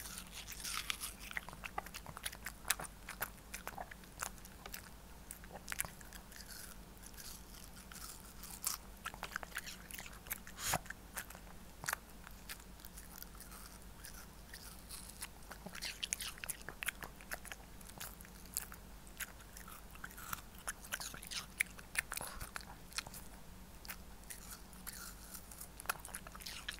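Shih Tzu biting and chewing a slice of watermelon held out by hand: many short, sharp bites and chewing clicks at an uneven pace.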